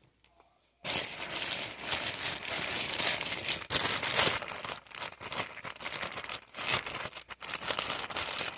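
Clear plastic packaging bag crinkling and rustling as it is handled and pulled open. The sound starts abruptly about a second in.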